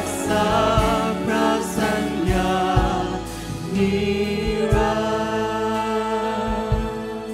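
Live worship band: several singers in harmony, singing in Thai over electric guitars, keyboard and drums with a steady kick drum. About halfway in, the voices settle into long held notes at the close of a chorus line.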